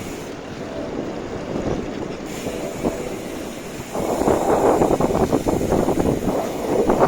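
Wind rushing over the microphone with road noise, heard while riding a bicycle; it gets louder about four seconds in.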